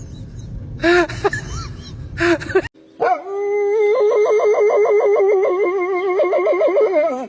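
A dog howling: one long, wavering howl of about four seconds that sinks in pitch at the end. It comes after a couple of short calls and an abrupt break.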